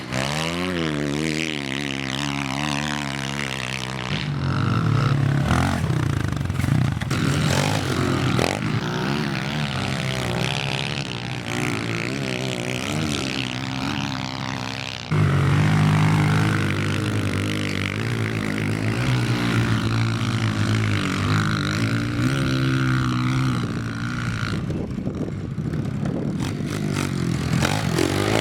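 Small single-cylinder four-stroke pit bike engines being ridden, revving up and down again and again. The sound changes abruptly about halfway through.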